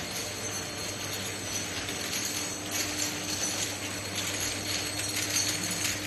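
Semi-automatic vial and ampoule light inspection machine running: a steady low hum under rapid light clicking and clinking of glass vials being conveyed and spun on the rollers. The clicking gets busier about halfway through.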